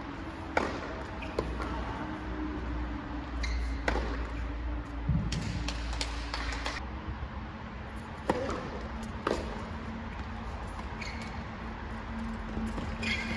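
Tennis balls struck by rackets and bouncing on court in a rally: a series of sharp pops a second or two apart.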